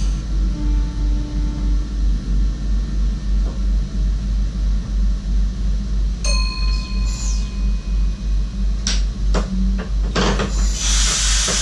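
Running noise in the driver's cab of a moving SGM Sprinter electric train, with a low throb about three times a second. About six seconds in, a single chime-like ring sounds for about two seconds. A few sharp clicks follow, then a burst of hiss near the end.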